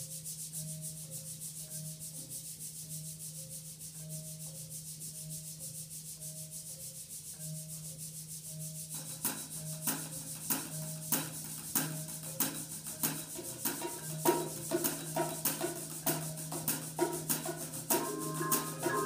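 Percussion ensemble playing a quiet opening: a steady rubbed, shaker-like hiss over a low held note and a soft two-note mallet figure repeating about twice a second. About halfway through, sharp clicks and hits come in and grow denser, and marimba notes join near the end.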